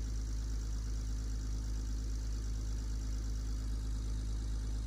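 Boat engine idling steadily: an even, low drone with no change in speed.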